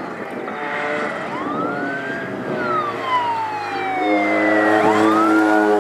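Rally course car's siren wailing in slow rising and falling sweeps as the car comes up the stage road. Its engine comes in about two-thirds of the way through and grows louder as it approaches.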